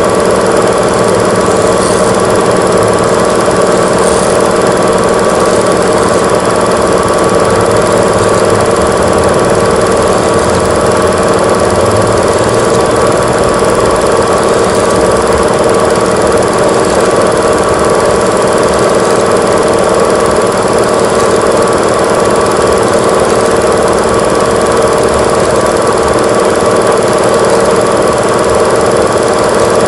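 Old Super 8 film camera running, a steady mechanical rattle with a constant whirring hum.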